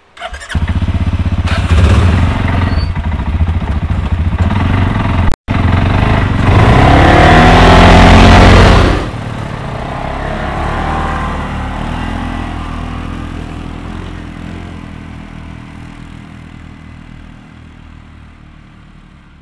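Quad ATV engines running up close and revving as the machines pull away. About nine seconds in the sound drops sharply, then fades slowly as the ATVs ride off into the distance.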